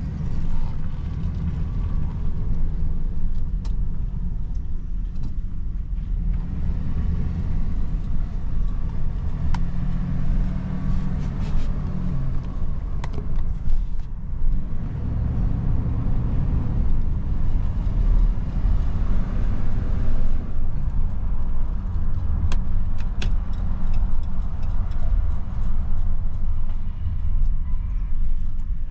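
2011 Dodge Ram 1500 pickup running, a steady low rumble, with a few sharp clicks scattered through.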